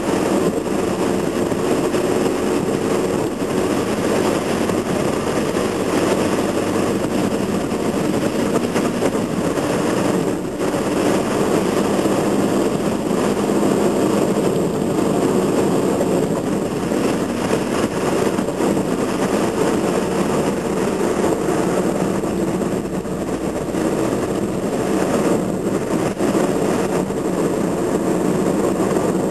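Steady engine and tyre noise of a car cruising along a road, heard from inside the cabin.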